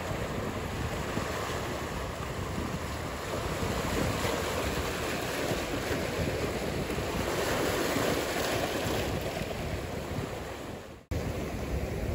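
Ocean surf with wind noise, a steady wash that swells a little midway, dips and drops out for an instant near the end, then cuts back in.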